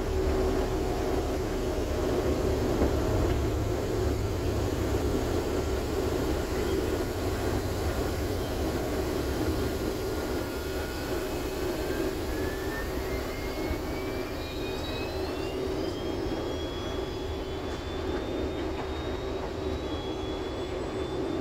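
Airliner cabin noise in the climb just after take-off: the engines' steady rush with a constant low hum. Through the second half a thin whine rises steadily in pitch.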